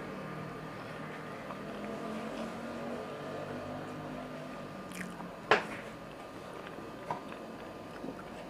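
Close-up eating sounds: chewing and soft wet mouth noises. About five and a half seconds in there is one sharp click, followed by a few lighter clicks.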